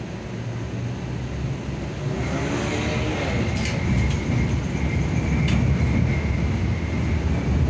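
LVS-86K tram running and accelerating from a stop, heard from inside the car: a deep rumble with a rising motor whine about two seconds in, growing louder. A thin, steady high squeal joins from about two seconds in, and a few sharp clicks follow as the wheels pass over track joints.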